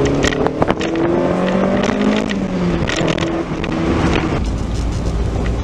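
BMW E30 M3's four-cylinder engine being driven, its pitch rising under acceleration and then dropping as the revs fall, with a few sharp clicks or knocks. About four seconds in it settles into a steadier, lower drone.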